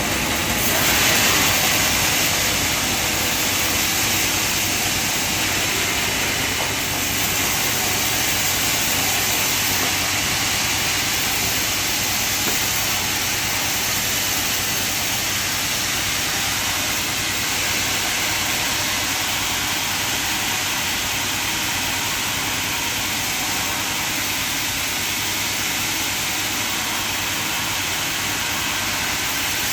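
Band sawmill running with a steady hissing noise, a little louder about a second in.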